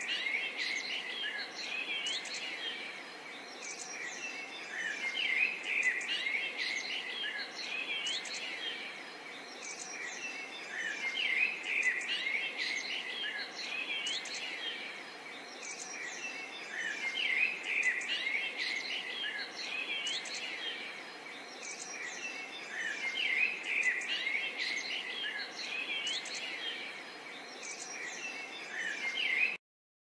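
Many small birds chirping and calling at once, a dense chorus of short, quick chirps and pitch glides over a faint hiss; it cuts off suddenly near the end.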